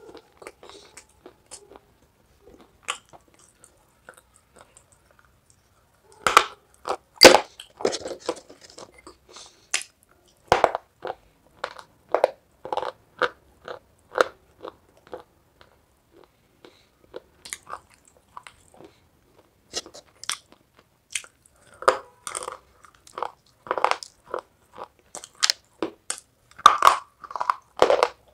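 Close-up crunching and chewing of pieces of half-baked clay pot: sharp crisp crunches, only a few in the first six seconds, then coming thick and fast, thinning out for a few seconds in the middle and picking up again toward the end.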